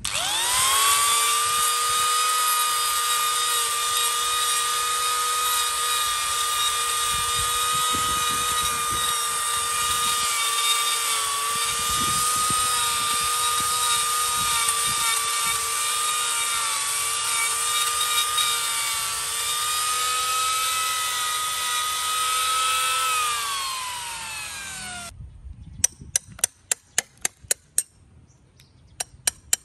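Small electric rotary carving tool with a burr spins up and runs with a steady high whine as it grinds rotten wood out of a fig bonsai's hollowed trunk, then winds down about 23 seconds in. A quick run of sharp taps follows near the end as a wooden-handled chisel chips at the hollow.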